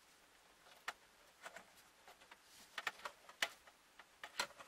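Faint, scattered clicks and light rustles of car-stereo harness wires and small plastic connectors handled by hand, about seven sharp ticks spread irregularly, the loudest near the middle and near the end.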